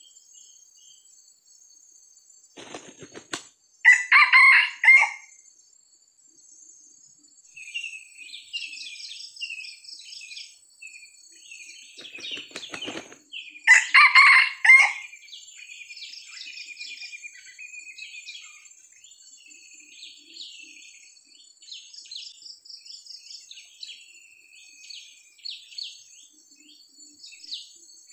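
Red junglefowl rooster flapping its wings and crowing twice, about ten seconds apart; the crows are the loudest sounds. Small birds chirp between and after the crows, over a steady high insect drone.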